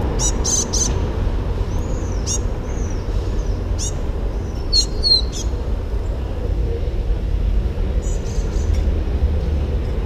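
Small songbirds giving short, high chirps and a few arching call notes, bunched in the first half and fainter near the end, over a steady low rumble of street traffic.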